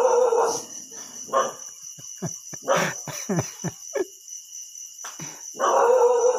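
Crickets chirring steadily in the background, with several short, louder, noisy sounds on top: the longest at the start and again near the end, and a run of brief ones in the middle.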